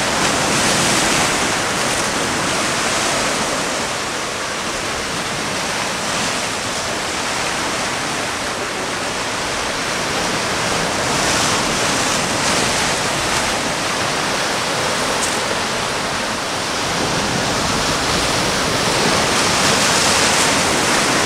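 Heavy sea surf breaking and foaming over shore rocks: a loud, steady rush of water that swells with each incoming wave, loudest near the end.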